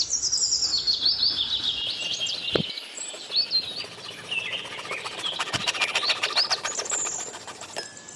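Small birds chirping and twittering, many quick high chirps overlapping, with a run of fast ticking calls in the second half.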